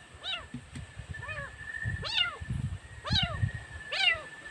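A cat meowing over and over: short calls that rise and fall in pitch, about one a second. A steady high-pitched whine sounds in the background.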